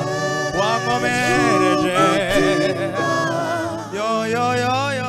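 Male lead vocalist singing a gospel worship song with strong vibrato and sliding between notes, over sustained keyboard chords.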